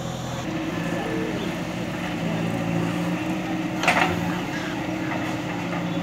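JCB 3DX Super backhoe loader's diesel engine running steadily while the backhoe digs, with one short sharp knock about four seconds in.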